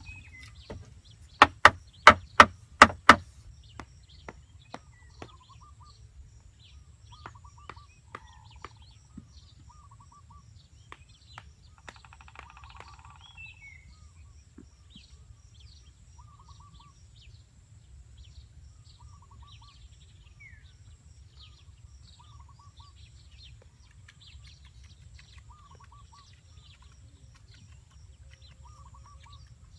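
A quick run of about six sharp, loud wooden knocks a couple of seconds in, a bamboo stick striking bamboo poles, trailing off into a few fainter taps. After that, birds calling, with a short chirp repeating every second or two over a low steady rumble.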